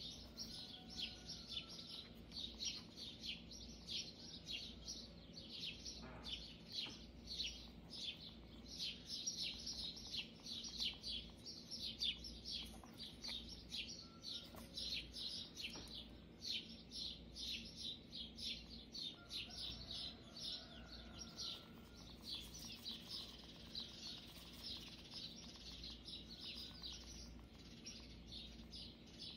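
Small birds chirping, many quick chirps overlapping without a break, with an occasional short whistled note above them, over a faint steady hum.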